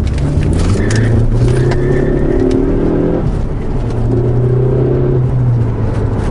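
Ford Focus ST's turbocharged 2.0-litre four-cylinder engine pulling steadily under way, heard from inside the cabin over constant road noise; the engine drone eases briefly about three seconds in and then returns. No rear-suspension clunk or squeak stands out: the car is quiet again after the sway bar fix.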